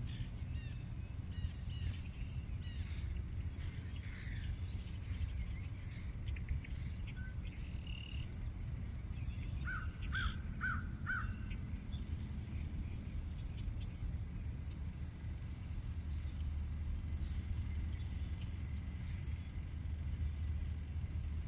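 Outdoor night ambience: a steady low rumble with scattered short animal calls, including a quick run of four short calls about ten seconds in.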